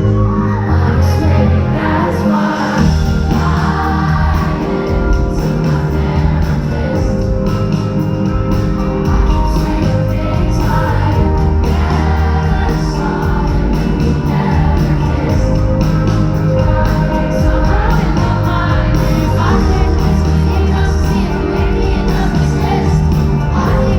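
Live pop song in concert: a woman sings lead over a full band with a steady bass line and sustained chords.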